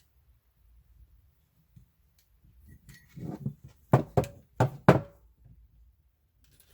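A run of knocks: a few soft ones, then four sharp knocks in quick succession within about a second.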